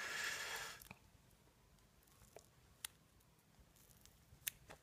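Duct tape being peeled off a small survival pod: a brief rasping rip lasting about a second, then a few faint clicks as the pod is handled.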